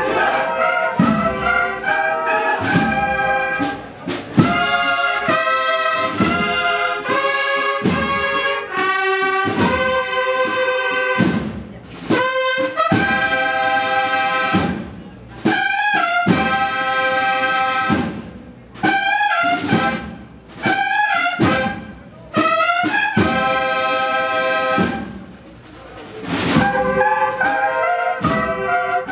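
Cornet and drum band playing a Holy Week processional march: cornets in harmony over drum strokes, with phrases broken by short pauses.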